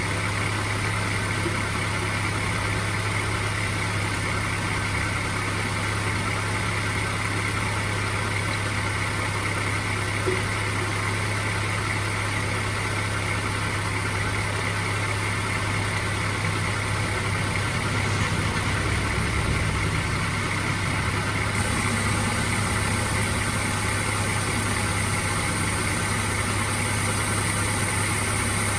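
Mazda MX-5 engine idling steadily during a manual-transmission flush, with a steady high hiss joining in about three-quarters of the way through.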